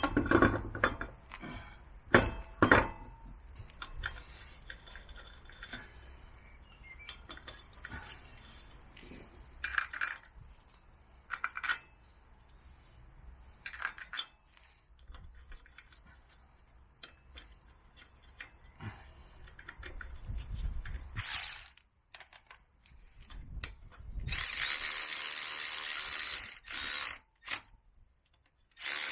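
Metal knocks and clinks as a motorcycle rear wheel is hung on its hub and the wheel bolts are started by hand, the loudest knocks in the first three seconds. Near the end a cordless electric ratchet whirrs for about three seconds, running a wheel bolt in, then starts again right at the close.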